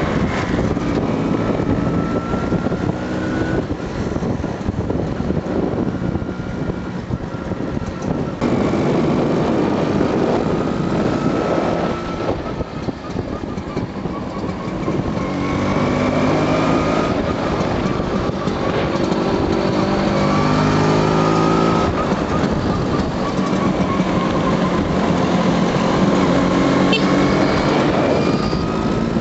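Vintage two-stroke scooter engines running at riding speed in a group, the nearest engine's note rising and falling again and again as it is throttled and shifted through the gears.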